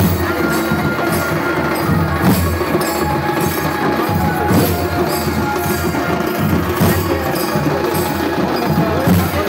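Traditional percussion-led music with a steady beat, with drums and jingling, tambourine-like percussion.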